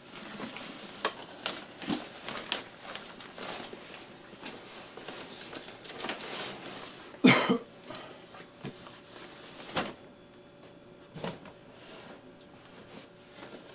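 Rustling and knocking as a nylon tent bag and cardboard packaging are handled, in irregular bursts, with one loud sudden sound about seven seconds in.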